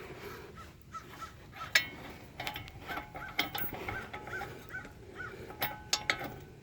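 Socket ratchet clicking in short runs, with metal clicks and taps, as a brake caliper bolt is threaded in.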